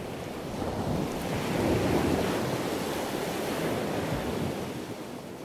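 Surf-like rushing noise that swells about two seconds in, then slowly fades out.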